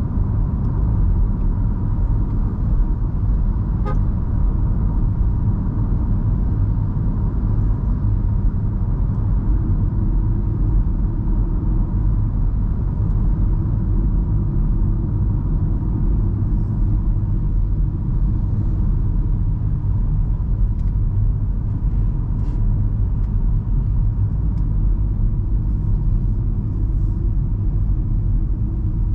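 Petrol 1.5-litre turbo MG Hector Plus SUV on the move: a steady, even rumble of road and engine noise. A faint steady high tone sits over it through roughly the first half.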